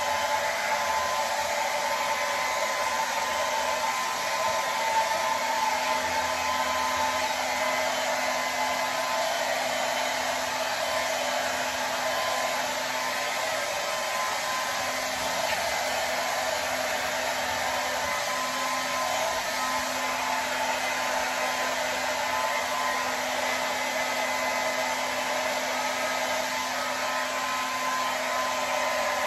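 Handheld hair dryer running steadily: an even rush of air over a constant motor whine.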